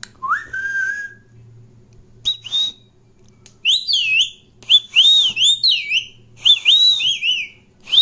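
Indian ringneck parrot whistling: one rising whistle near the start, then from about two seconds in a run of quick, high, up-and-down whistled notes.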